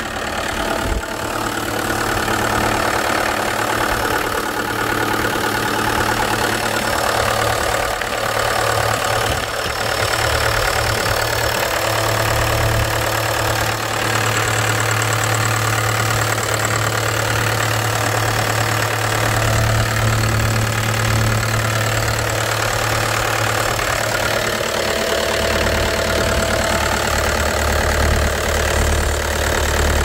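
Cat 262C skid steer's diesel engine running at idle, heard close up through the open rear engine door.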